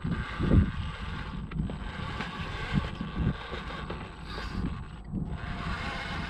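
Electric motor and gear drive of an Axial RC rock crawler whining steadily under load as it climbs rock, with wind gusting on the microphone.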